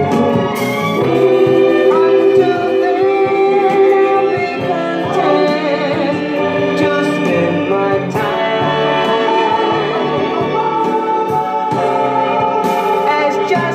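Music: a vocal group singing long held notes in harmony over instrumental backing.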